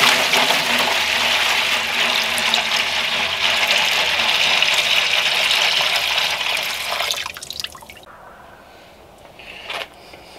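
Liquid poured in a heavy stream into a disposable aluminium foil pan, splashing and sloshing as the pan fills into a smoker's water pan. The pour tapers off and stops about three-quarters of the way through.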